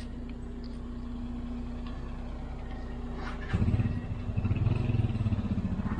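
Suzuki Gixxer 150 single-cylinder four-stroke motorcycle engine idling steadily, then about three and a half seconds in the throttle opens and the engine turns louder and pulses hard.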